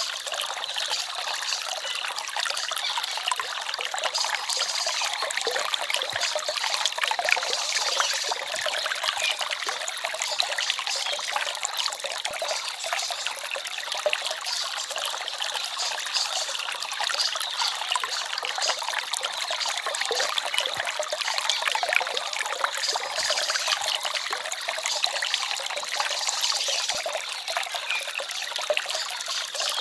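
Small forest stream babbling and trickling steadily over stones, a continuous, even splashing with little low rumble.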